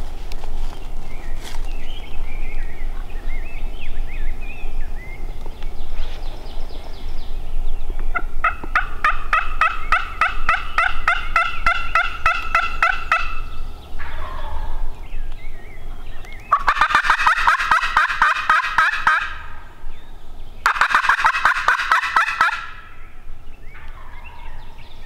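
Wild turkey gobbling: three rapid rattling gobble sequences. The first comes about a third of the way in, and the last two, near the end, are louder.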